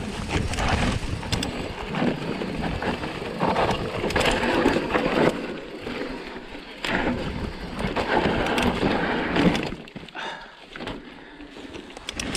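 Mountain bike riding down a rocky dirt trail: tyres rolling and crunching over dirt and rock, with frequent sharp knocks and rattles from the bike over bumps. It eases off and gets quieter about ten seconds in.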